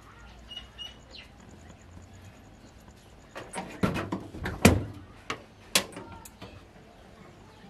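Corrugated tin door rattling and knocking as it is handled, a burst of sharp knocks and clatters lasting about three seconds, loudest around the middle.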